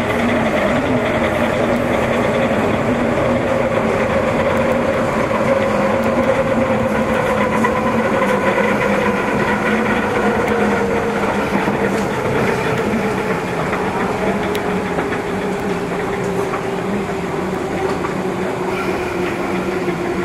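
East Rail line electric train running, heard from inside the passenger car: wheels on the rails with a motor whine that falls slowly in pitch as the train slows.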